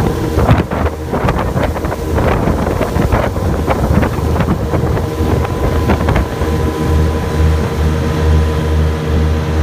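Twin Tohatsu outboard motors running at cruising speed, a steady low drone, with wind on the microphone and water rushing past the hull.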